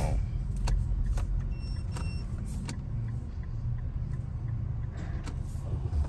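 Car engine idling, a low steady rumble, with a few light clicks and two short high beeps about two seconds in.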